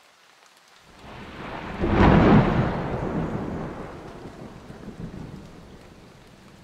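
Thunder rumbling: a roll that swells over about a second, peaks about two seconds in, then crackles and fades away slowly.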